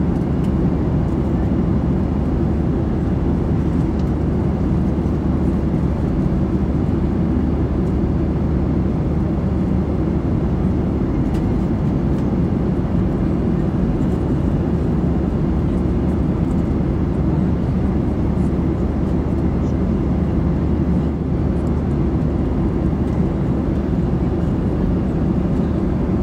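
Steady cabin noise of a Boeing 737-800 in flight: a constant low rush that holds even throughout.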